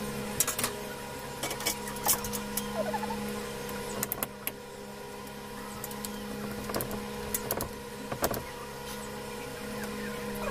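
Light clicks and knocks from hands working electrical wiring, scattered irregularly, over a steady hum.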